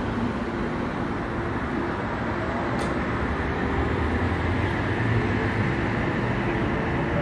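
Sydney Trains electric passenger train running, a steady rumble with a faint whine that rises slowly near the end.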